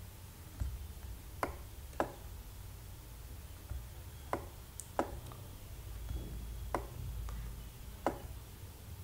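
Computer mouse clicking: about six sharp single clicks spread over several seconds, two pairs of them about half a second apart, over a faint low hum.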